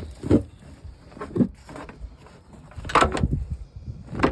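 A few separate knocks and rustles of handling, with the loudest cluster about three seconds in.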